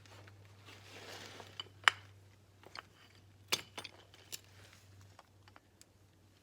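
A few sharp metallic clinks and taps as metal brake parts are handled and knocked together, the loudest about two seconds in and another about a second and a half later, over a faint steady low hum.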